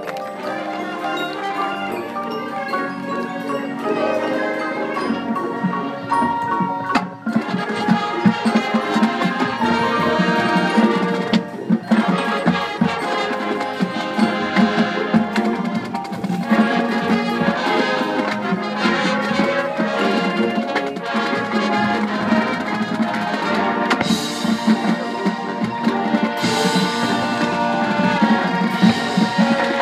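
Marching band playing, with mallet percussion (marimba, xylophone, glockenspiel) and drums prominent, briefly dropping off twice in the first dozen seconds.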